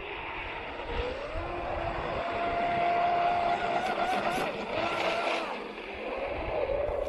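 Atomic SR-85 RC speedboat's electric motor whining as the throttle changes: the pitch rises about a second in, holds steady for a couple of seconds, then drops, surges briefly and rises again near the end.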